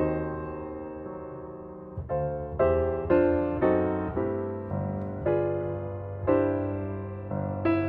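Background piano music: slow notes and chords, each struck and left to ring and fade.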